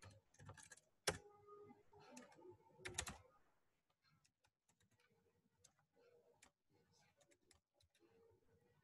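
Computer keyboard typing: a short run of faint keystrokes in the first three seconds or so, then a few scattered light clicks.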